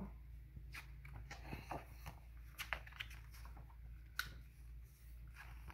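Faint rustling and scattered small clicks of a paperback book's paper pages being opened and pressed flat by hand, over a low steady hum.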